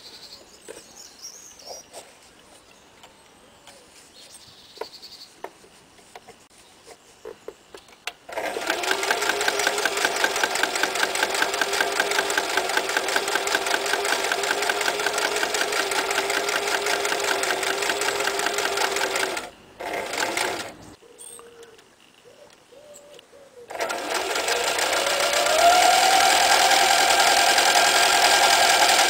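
Toyota 9060 electric sewing machine stitching through thick material. After several seconds of faint clicks, it runs steadily for about eleven seconds and gives one short burst. After a pause it starts again, speeding up, and runs on.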